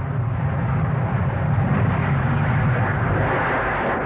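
Boeing 707 jet airliner passing overhead: loud engine noise building to a peak near the end, then starting to fade. The sound is typical of the noisy first-generation jets.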